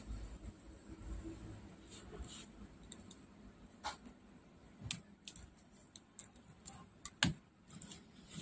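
Scattered small clicks and taps of a soldering iron and fingers against a speaker's circuit board and plastic housing during desoldering, the loudest near the end, over a faint steady high whine.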